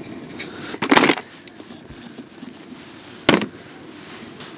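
Two loud, short clattering knocks, about two seconds apart, as split firewood is set into a metal fire bowl.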